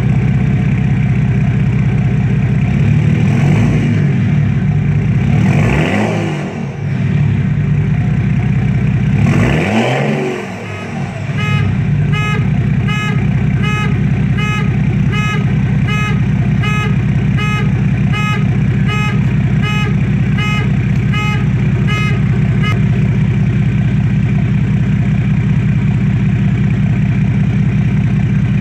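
1998 Mercedes-Benz E300's 3.0-litre turbodiesel inline-six idling through a 3-inch turbo-back straight-pipe exhaust with no muffler. It is blipped three times in the first ten seconds, each time revving up and falling back to idle, the blips at about six and ten seconds the biggest. Through the middle a steady beeping repeats about three times every two seconds, then stops.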